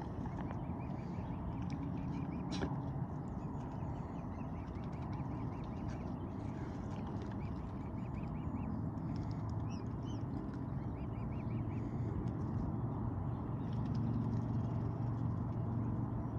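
Mute swans and their cygnets feeding at the water's edge: a steady low sound of bills working in the water and at the seed, with faint high cygnet peeps now and then.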